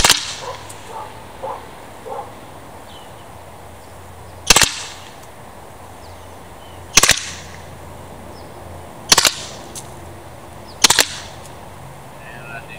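Byrna TCR CO2-powered .68-calibre launcher firing five sharp single shots, spaced a few seconds apart and coming a little quicker toward the end.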